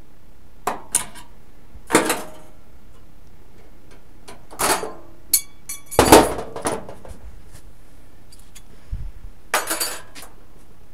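Metal objects clinking and knocking, as when tools and sheet-metal parts are picked up and set down: a string of short, separate clanks and rattles, one with a brief ringing note midway, and a last cluster near the end.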